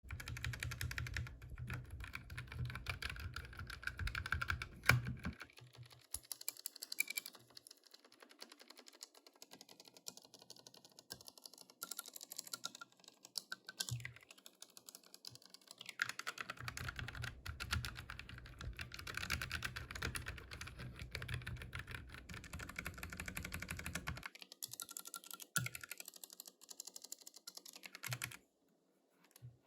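Typing on a Redragon K647 mechanical keyboard with red (linear) switches: a dense, irregular run of keystroke clicks that eases off to softer typing in two stretches.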